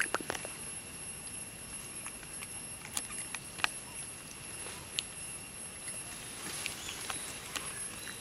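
Steady high-pitched drone of insects, with scattered sharp clicks and light rustles in dry leaf litter, the clearest near the start and about three and five seconds in.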